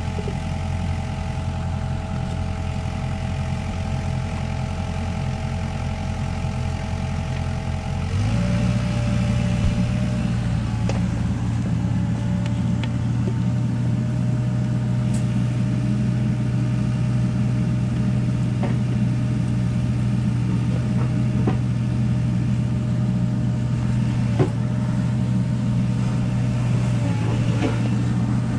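An engine runs steadily nearby. About 8 seconds in it steps up to a higher speed and gets a little louder, then holds there. A few faint clicks sound over it.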